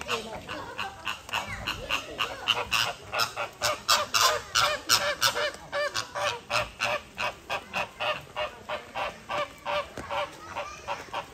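A flock of flamingos honking: short calls follow one another at about three a second, with several birds calling over each other throughout.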